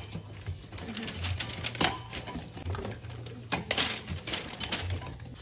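Metal aerosol spray-paint cans knocking and clinking against each other as they are packed into paper bags, an irregular run of sharp clicks and knocks.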